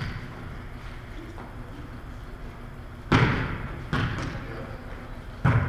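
Volleyball being struck by players' hands and arms in a rally: a sharp smack about three seconds in, a lighter one a second later and another near the end, each echoing around the gym.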